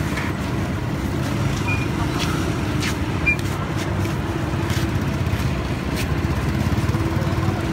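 Steady low rumble of road traffic and a running vehicle engine, with scattered light clicks and two brief high chirps.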